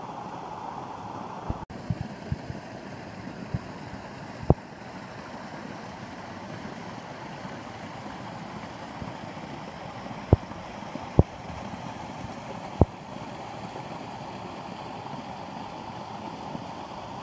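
Steady rush of water from the Govetts Leap waterfall plunging and running over rocks, with several sharp thumps: a cluster in the first few seconds and three more past the middle.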